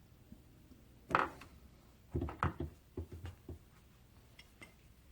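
Metal tools and parts handled at a milling machine: a sharp clank about a second in, then a quick run of knocks and clunks, and a few light ticks near the end.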